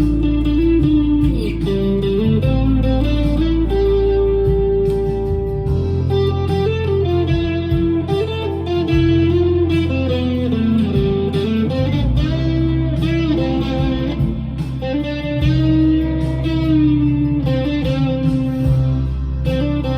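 Chapman ML1 electric guitar playing a lead melody with bent and held notes over a backing track with a steady bass line.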